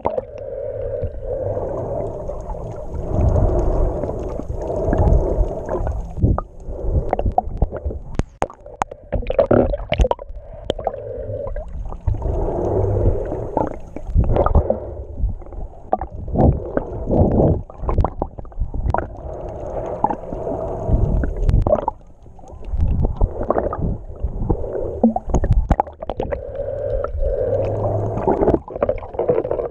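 Muffled water sound picked up by a waterproof GoPro held at and just under the surface: sloshing and gurgling that swells and fades, with frequent short knocks and clicks.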